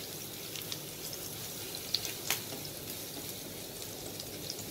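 Minced garlic sizzling in a little hot oil in a nonstick frying pan, being fried until golden: a steady hiss with scattered small pops, and two sharper clicks about two seconds in.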